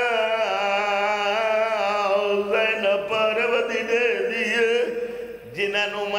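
A man's chanted mourning lament in a drawn-out, wavering voice, amplified through microphones, with a brief break about five and a half seconds in.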